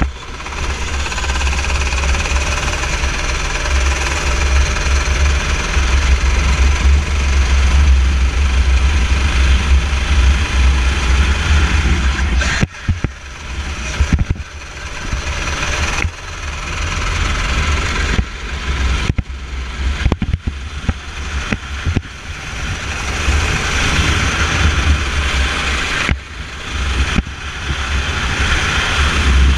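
Racing kart engine running hard, heard onboard under heavy wind buffeting on the camera microphone. In the second half the sound drops away briefly several times as the kart slows for the bends, then builds again each time.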